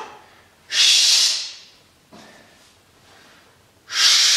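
A man's two loud, forceful breaths about three seconds apart, each lasting under a second. They are the strain breathing of heavy barbell curl repetitions.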